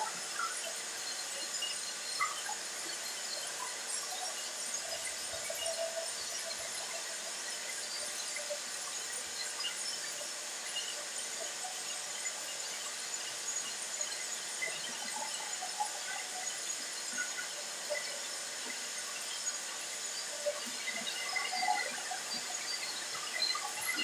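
A soap extruder running steadily: its electric motor and screw hum with a constant hiss, and short squeaks come and go.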